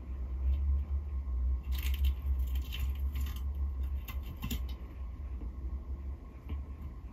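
Greek tortoise biting and chewing cuttlefish bone: crisp crunching bites in clusters, about 2 seconds in, around 3 seconds and again about 4.5 seconds in, over a low steady hum.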